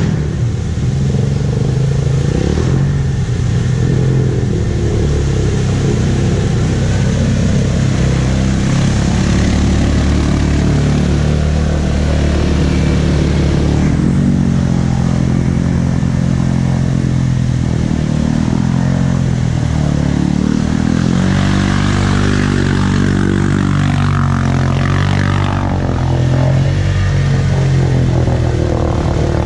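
ATV engines running through a flooded mud trail, the revs rising and falling as the quads push through the water.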